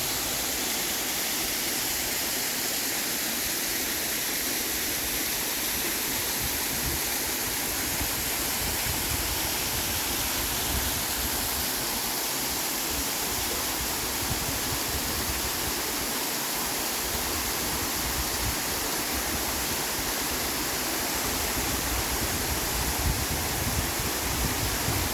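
Waterfall: a steady, unbroken hiss of falling water.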